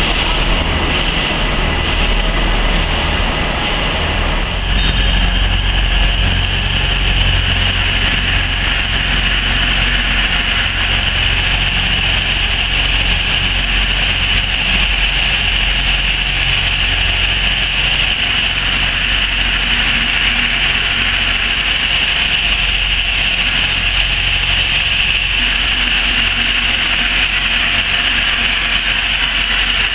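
Steam locomotive in a station, with a steady hiss of escaping steam over a low rumble. After a change about five seconds in, the sound is of a streamlined LNER A4 Pacific steam locomotive drifting slowly in with its train.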